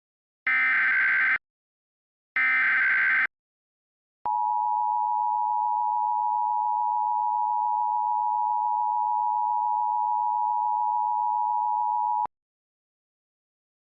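Emergency Alert System SAME header: two one-second bursts of digital data tones, encoding a severe thunderstorm watch (SVA). Then the EAS two-tone attention signal (853 and 960 Hz played together) holds steady for about eight seconds and cuts off abruptly.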